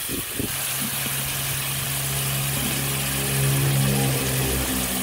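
An engine idling steadily, getting louder about three and a half seconds in, over the faint sizzle of chilli paste frying in a wok.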